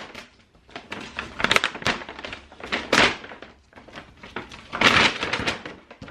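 Brown paper grocery bag crinkling and rustling in several short bursts as hands rummage in it and pull items out.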